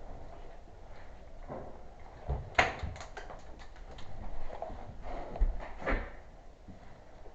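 An airsoft gun firing a quick string of about eight sharp shots a couple of seconds in, followed by two dull thumps.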